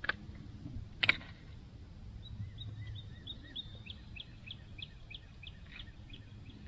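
A songbird singing a run of short repeated chirping notes, about three to four a second, for some four seconds. Before it come two sharp clicks, the louder about a second in.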